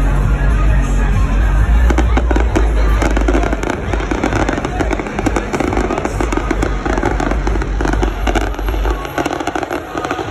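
Aerial fireworks bursting, with a rapid run of sharp pops and crackles that is densest in the middle. Music with a heavy bass and crowd voices sound underneath.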